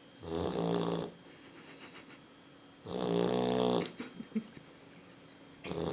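A sleeping Labrador puppy snoring loudly, three snores about three seconds apart, each lasting about a second; the third begins near the end.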